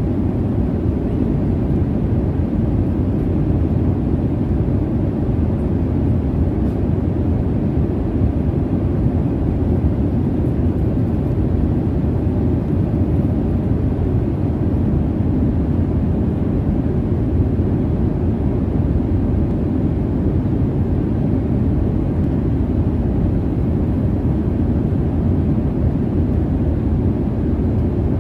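Steady low rumble of jet engine and air noise inside an airliner cabin in cruise, even and unbroken, with most of its weight in the low end and little hiss.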